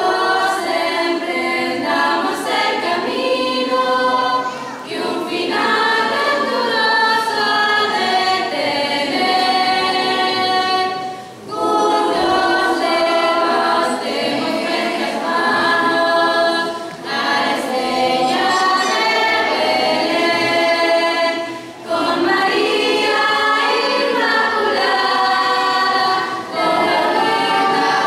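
Girls' choir singing a cappella in harmony, in sustained phrases broken by short breaths about every five seconds.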